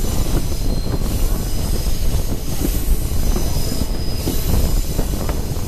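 Steam-hauled excursion train running along the track: a steady, heavy rumble of the cars on the rails.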